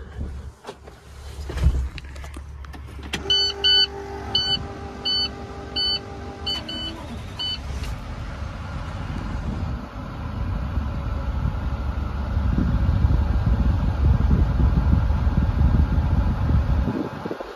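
A dashboard warning chime beeps repeatedly for about four seconds over the steady rumble of a 2013 International TerraStar's diesel engine at idle. The engine noise grows louder about ten seconds in.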